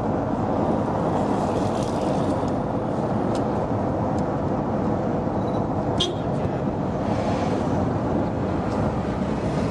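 Steady rumble of a car driving along a road, engine and tyre noise with a couple of light clicks.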